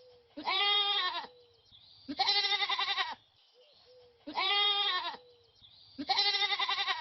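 Goat bleating four times, each call a little under a second long with a wavering, quavering pitch.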